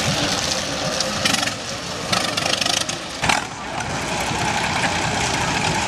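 A vehicle engine running loudly and steadily, with short sharp spikes about a second apart in the first half.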